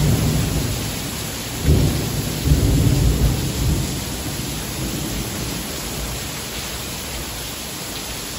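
Heavy rain pouring steadily, with a roll of thunder that starts suddenly about two seconds in and dies away over the next couple of seconds.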